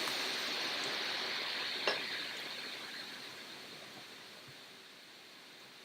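A steady hiss that fades away over a few seconds, with a single sharp clink about two seconds in.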